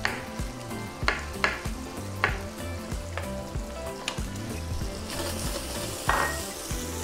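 A chef's knife slicing brown cremini mushrooms on a cutting board, with five sharp strikes. About five seconds in, bacon sizzles in a frying pan as it is stirred with a spatula, with one loud knock of the spatula against the pan.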